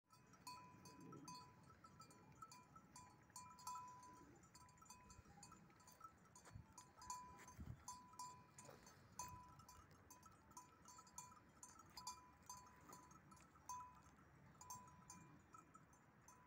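Sheep bells on a grazing flock clinking faintly and irregularly, light metallic rings about once or twice a second.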